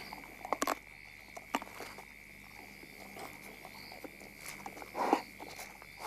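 Night ambience: a steady high-pitched chirring of night insects, with scattered clicks, crunches and rustles, the loudest crunch about five seconds in.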